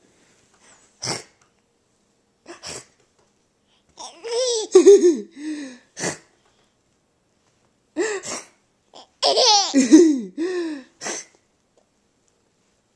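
A baby laughing in two bouts of high giggles, about four and nine seconds in, set between short sharp bursts of noise: the silly noises that set her laughing.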